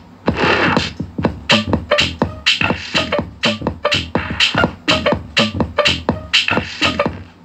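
Electronic dance music with a fast, steady beat, played loud through two 5-inch subwoofers driven by a small 2.1 class D amplifier board.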